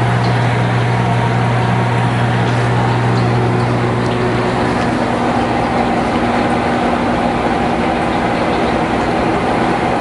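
Microwave oven running: a steady hum and fan noise. A low hum in it drops out about four and a half seconds in.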